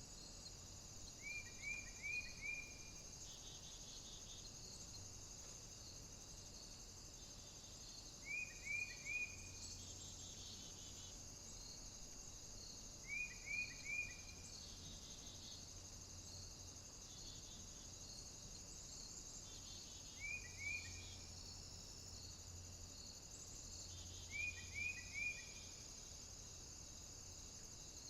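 Faint nature soundscape: a steady chorus of crickets and other insects, with a short call of three or four quick notes coming five times, every five to seven seconds. These calls are the loudest sounds.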